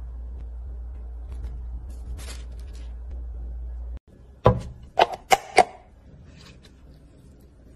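A steady low hum with faint rustling of food being handled cuts off suddenly. Four loud, sharp metallic cracks follow in about a second as a tin can's lid is cut and forced open, then faint handling noises.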